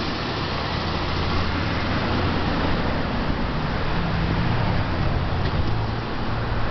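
Steady street traffic noise: a low rumble under an even hiss.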